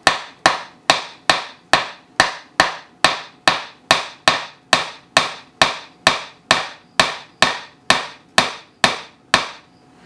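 Claw hammer tapping a nail into a wooden birdhouse panel: a steady run of light, even strikes, about two and a half a second, each with a short metallic ring, stopping shortly before the end.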